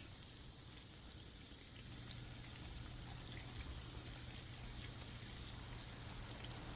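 Twisted shakoy dough deep-frying in hot oil: a faint, steady sizzle with scattered small crackles.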